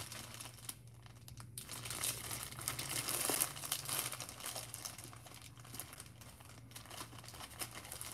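Plastic packaging of a long pack of braiding hair crinkling as it is handled and turned over, in irregular crackles with a brief lull about a second in.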